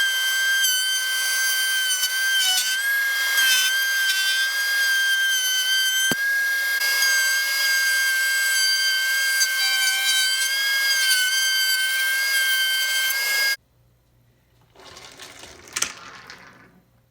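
Woodworking power tool running steadily with a high whine, cutting off suddenly near the end.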